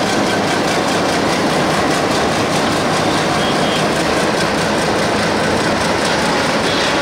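A moving train: a steady, loud rumble and rattle of wheels on the rails.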